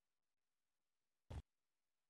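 Near silence while the live transmission has dropped out. About a second and a third in, one short burst of noise cuts through, a glitch as the signal comes back.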